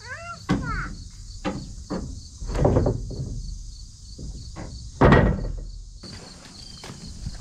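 Crickets chirping steadily, with a run of knocks and thumps, two of them louder about two and a half and five seconds in. A short rising-and-falling call sounds at the very start.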